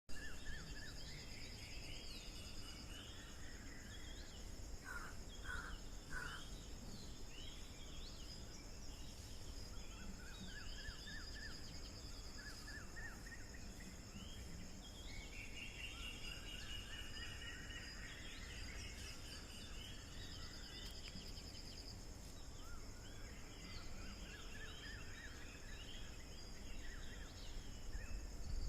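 Nature ambience: many birds chirping and trilling over one another, above a steady high-pitched trilling of insects such as crickets, with a low background rumble.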